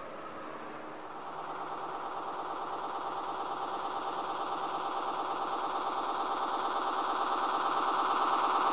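G-scale model doodlebug motor car approaching on garden-railway track, giving a steady, rapid, rhythmic engine sound that grows louder as it nears.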